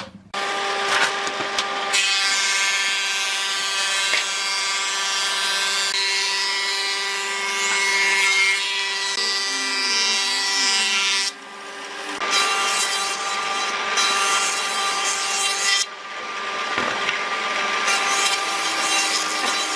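Electric power tool running at a steady whine while cutting or working wood, with a rough rasping noise over the motor tone. It stops about eleven seconds in, starts again a second later, and dips briefly a few seconds after that.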